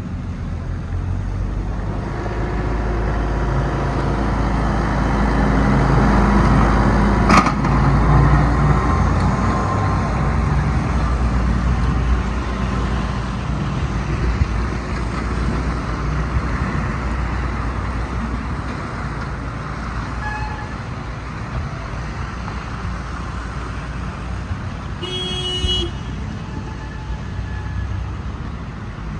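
Road traffic on a slushy, snow-covered city street: car engines and tyres hissing through wet slush, swelling as vehicles pass and loudest several seconds in. A sharp click about seven seconds in, and a short car-horn toot near the end.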